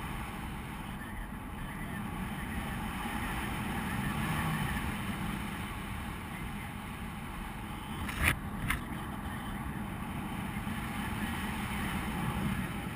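Wind rushing over the microphone of a camera in paraglider flight, a steady noisy rumble. Two short knocks come half a second apart a little past the middle.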